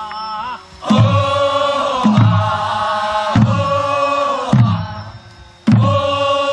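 A group of voices singing a Korean folk work chant: a single held note wavers for about the first second, then the chorus comes in with short rhythmic phrases, a new one roughly every second, each starting with a falling swoop.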